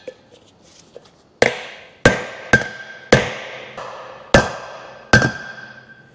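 Hammer striking a bearing race driver plate, driving a new wheel bearing cup into a Toyota Hilux front hub: six sharp metallic blows, each ringing briefly, about half a second to a second apart.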